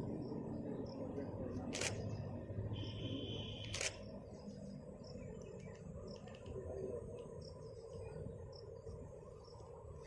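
DSLR camera shutter clicking twice, about two seconds apart, over insects chirping in the trees. A short buzzing insect call comes just before the second click.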